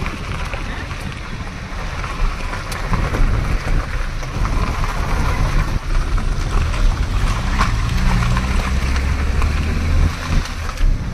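Wind buffeting the microphone: a constant rushing noise with heavy low rumble. A low steady hum joins it for about two seconds near the end.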